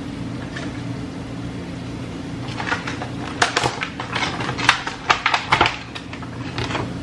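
A steady low hum, with a quick run of sharp clicks and rattles about two and a half to six and a half seconds in.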